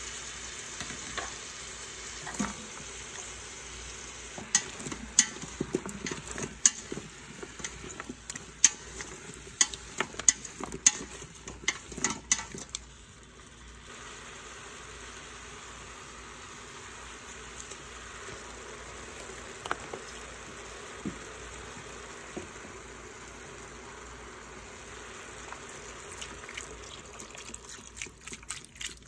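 Pork ribs, tofu, green beans and potato sizzling as they are stir-fried in a stainless steel pot, with many sharp clinks and scrapes of a utensil against the pot from about four to thirteen seconds in. After that the sizzle runs on evenly, and near the end chicken broth is poured in with a trickling splash.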